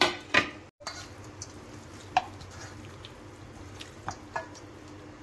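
Raw chicken pieces being mixed by hand with spices in a stainless steel bowl, with a few light clicks against the bowl. Two sharp knocks, the loudest sounds, come right at the start.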